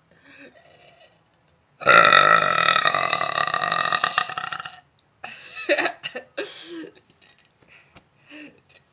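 A woman belching: one long, loud burp of about three seconds, then a few short burps.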